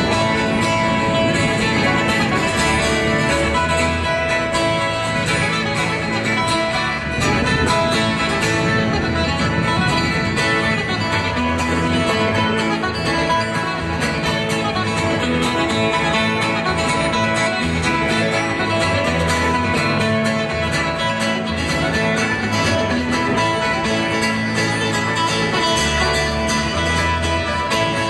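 Live folk band playing an instrumental tune: fiddle over strummed acoustic guitar, electric bass guitar and a small plucked string instrument, amplified through a stage PA.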